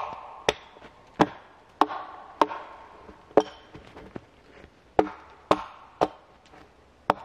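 Axe chopping firewood: about ten sharp wooden strikes, roughly two a second, with a short pause partway through.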